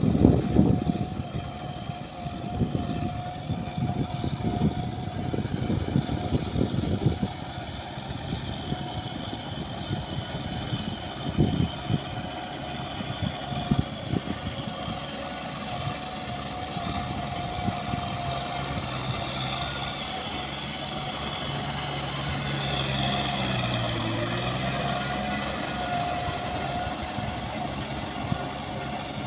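Kubota farm tractor's diesel engine running steadily as it pulls a rotary tiller through paddy mud: a continuous drone with a higher steady whine above it. Irregular low rumbling fills the first several seconds, and the engine grows a little louder past the middle as the tractor comes closer.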